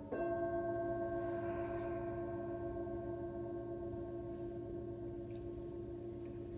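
A singing bowl is struck once and rings on, a steady low tone with a few higher overtones that slowly fade.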